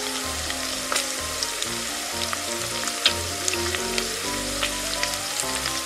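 Frying sound effect: a steady sizzle of oil with scattered crackles, dubbed over the pretend frying of play-dough chicken drumsticks, with a light background tune underneath.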